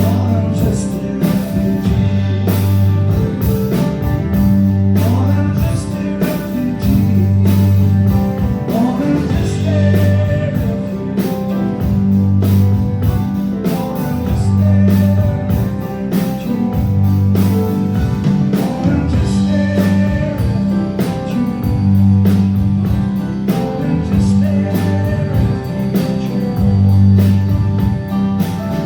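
Live rock band playing a song: electric guitar, a bass line that changes notes every couple of seconds, and a drum kit, with a voice singing over it.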